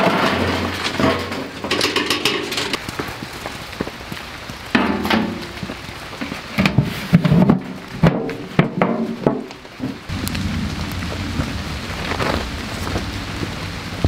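Metal clatter as burning charcoal and embers are tipped from a fire grill into an 18-litre square tin, then a run of hard knocks as the tin's steel lid is pressed shut to smother the fire. A steady rain hiss runs underneath and takes over near the end.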